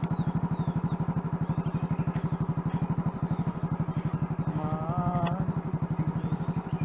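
Royal Enfield Bullet's single-cylinder engine idling with a steady, rapid, even thump. About five seconds in, a short wavering call sounds over it.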